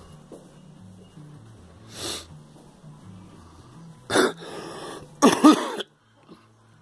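A girl coughing: a short breath about two seconds in, then a sharp cough near four seconds followed by a rough drawn breath, and a harsher, hoarse cough just after five seconds that cuts off suddenly.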